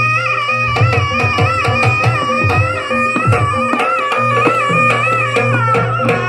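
Jaranan accompaniment music: a wavering, ornamented reed-like melody over drums and a sustained low tone. There is a busy patch of drumming in the first half.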